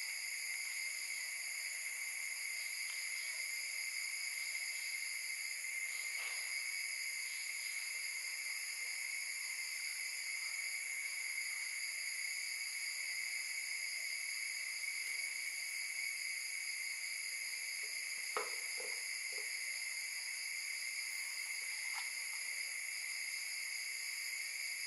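Steady, high-pitched chorus of insects such as crickets, several unbroken tones holding level throughout, with a few faint taps about three quarters of the way through.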